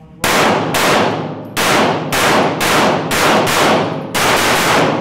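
A fast string of pistol shots, each ringing back off the concrete walls of an indoor range, with brief breaks about one and a half and four seconds in.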